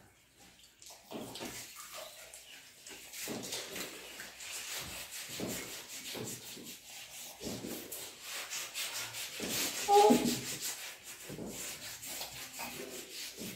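Hands mixing and squeezing rice and egg curry on steel plates, with chewing and lip smacking: repeated soft, irregular wet rubbing and squishing. A brief pitched sound about ten seconds in is the loudest moment.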